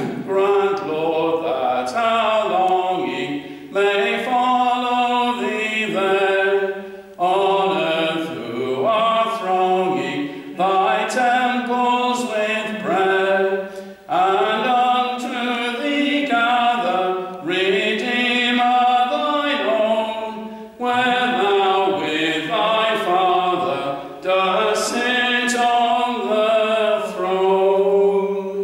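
Unaccompanied voices singing a hymn in a chant-like style, phrase after phrase with short breaks between.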